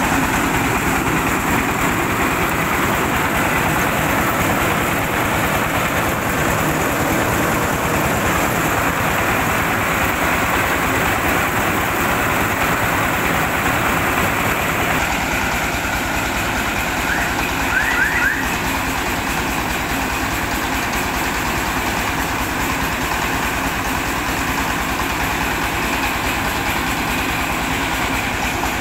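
Engine-driven rice milling machine running steadily while milling rice: an even engine beat under a constant hiss.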